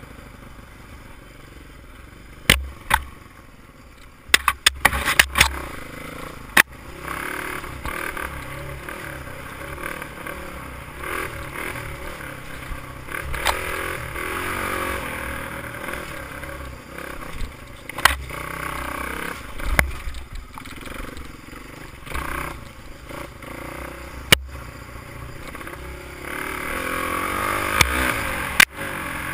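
Honda XR200 dirt bike's single-cylinder four-stroke engine running and revving as it is ridden along a dirt track, the revs swelling around the middle and again near the end. Several sharp knocks and rattles cut through it.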